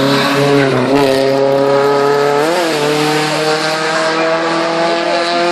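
Race-prepared Honda Civic hatchback engine revving hard as the car accelerates away up the hillclimb. Its pitch climbs slowly, with a brief wobble about halfway through.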